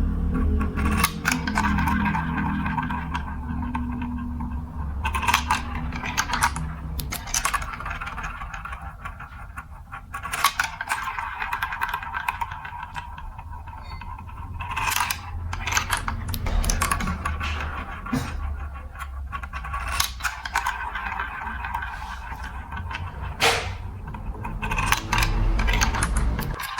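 Glass marbles rolling down a plastic building-block marble run: a steady low rumble broken by many sharp, irregular clicks and clacks.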